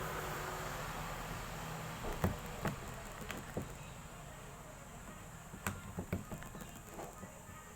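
A series of sharp plastic clicks and knocks, several in a row and spaced unevenly, as RJ-45 plugs on a UTP cable are handled and pushed into the jacks of a network cable tester. A faint steady hiss lies underneath.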